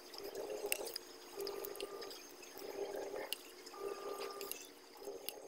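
Faint eating sounds: a metal spoon clicking a few times and wet mouthfuls of rice soaked in sugarcane juice.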